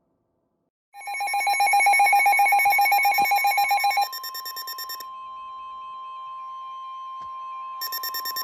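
Emergency weather alert tones for a severe thunderstorm warning. About a second in, a steady attention tone near 1 kHz starts, overlaid by a loud, rapidly pulsing alarm beep for about three seconds. The beeping then turns fainter and pulses loudly again near the end.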